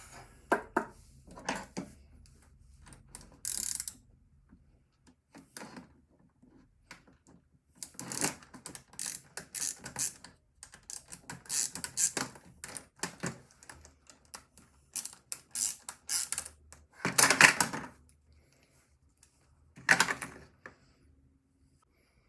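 Computer parts being handled and taken apart: scattered clicks, ticks and scrapes of plastic and small metal pieces, with a louder clatter about 17 seconds in and another about 20 seconds in.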